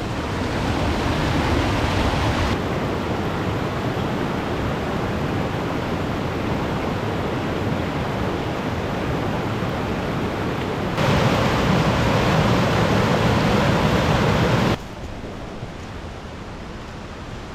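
Steady rushing of a river and waterfalls in spate, swollen by heavy rain. The level jumps abruptly a few times: louder from about eleven seconds in, then much quieter near the end.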